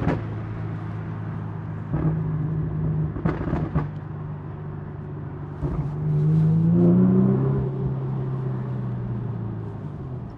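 Infiniti G37's V6 with aftermarket headers and exhaust running, a steady low exhaust note that rises in pitch and gets louder about six seconds in, then settles back. A few short clicks can be heard early on.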